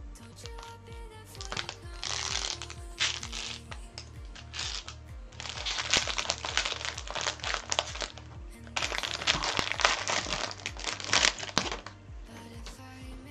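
Crinkling and rustling of foil trading-card pack wrappers being handled, in three stretches: a short one about two seconds in and two longer ones in the middle and later part. Background music with a steady beat plays underneath.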